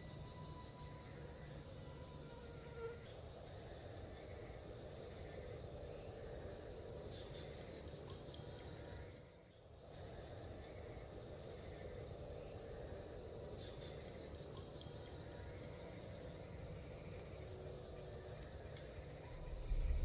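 Night-time forest insects trilling in a steady, high-pitched chorus, with a low rumble beneath. The whole sound briefly dips away about nine seconds in.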